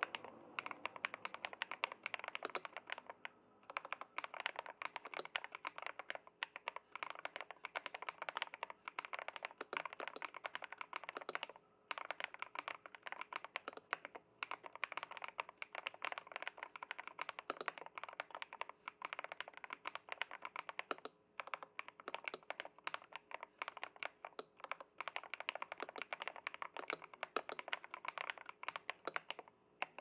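Steady touch-typing on a KBDfans 67lite R3 mechanical keyboard with lubed KTT Wine Red linear switches, foam-dampened case and XDA-profile keycaps: a dense stream of deep, muted 'thocky' keystrokes, broken by a few brief pauses.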